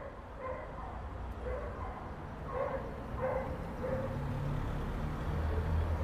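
Inside a passenger lift car: a low running hum that grows louder in the second half, with a dog barking faintly in short repeated barks over the first few seconds.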